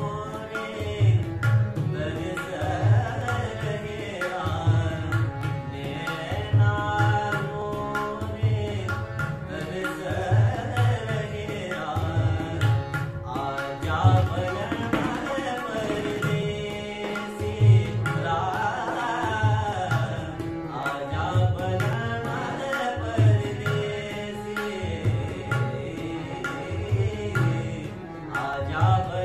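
A young man singing a Hindustani thumri with long gliding, ornamented phrases, accompanied by harmonium and tabla. The tabla keeps a steady rhythmic cycle with a deep bass-drum stroke about once a second.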